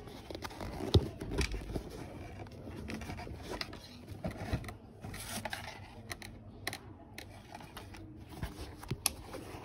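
Handling noise from a trainer being turned over and handled close to the microphone: irregular rustling and scraping with scattered clicks and knocks, the sharpest knock about a second in.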